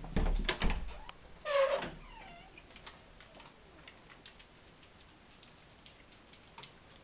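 Knocks and bumps from a handheld camera being moved, then a brief squeal, then light scattered ticking of dogs' claws on a tile floor.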